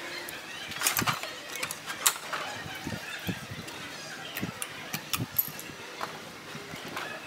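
Pliers gripping and pulling a mylar drum-head film over a drum hoop, the plastic crinkling and clicking in scattered sharp clicks.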